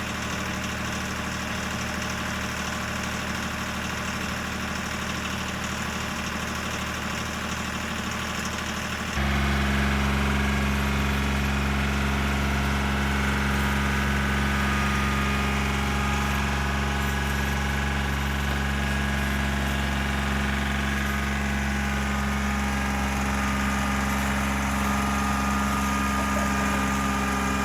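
Vehicle engine idling steadily. About nine seconds in, the sound changes abruptly to a louder, deeper engine hum that holds steady.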